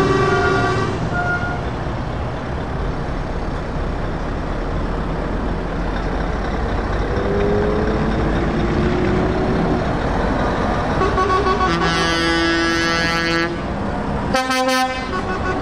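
Scania truck engine running at low speed as the tractor unit rolls past, with truck air horns sounding over it. A horn tone is heard right at the start, a long horn blast comes about twelve seconds in, and a short, loud blast follows near the end.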